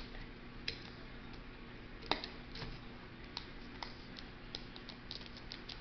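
Fingers and fingernails picking at a Kinder Joy egg's plastic shell and wrapper, making small irregular clicks and ticks, with one sharper click about two seconds in.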